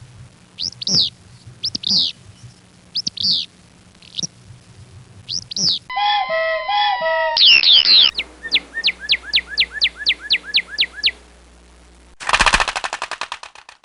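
Several different bird calls spliced one after another. One bird gives sharp chirps about once a second for the first six seconds. A different bird follows with lower, more tonal calls, then a quick run of about a dozen falling whistled notes, and near the end a fast rattling burst.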